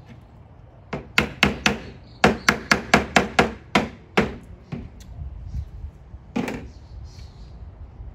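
Plastic-faced mallet tapping wooden dowel pegs into a wooden board: a quick run of about a dozen sharp taps over some four seconds, then one more a couple of seconds later.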